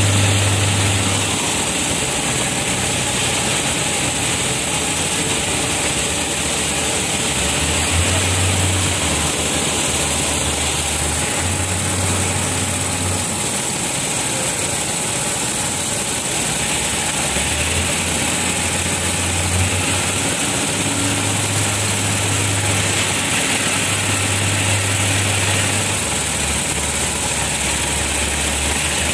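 Inclined belt bag-loading conveyor running steadily, its motor and belt giving a constant mechanical hum and hiss, with a low drone that swells and drops every few seconds.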